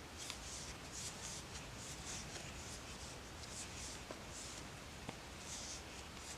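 Faint rustling of yarn being drawn through loops by a 7mm crochet hook, in repeated short soft swishes, with a few light clicks.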